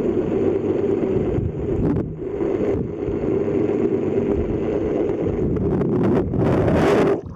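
Muffled, steady drone of a boat's engine heard through a camera held underwater. Near the end comes a brief burst of rushing, splashing water.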